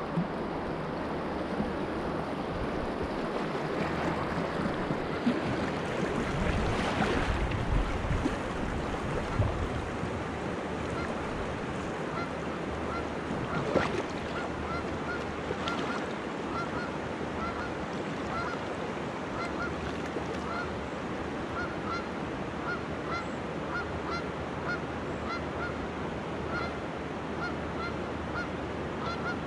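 Canada geese honking repeatedly, a couple of short honks a second, starting about a third of the way in and going on to the end. Under them runs the rush of swift river water with wind on the microphone.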